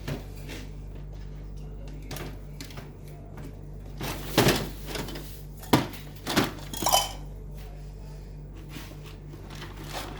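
Toys and containers being handled and set down: scattered light knocks and clatters, with a louder run of clattering about four to seven seconds in, over a steady low hum.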